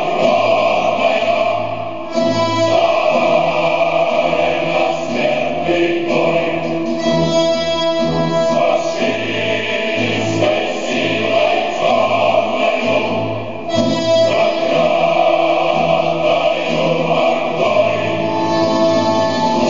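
Choral music: a choir singing with instrumental accompaniment.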